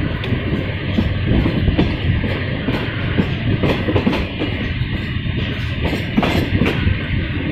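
Passenger train running along the line, heard from an open coach window: a steady rumble with repeated clicks of the wheels passing over rail joints.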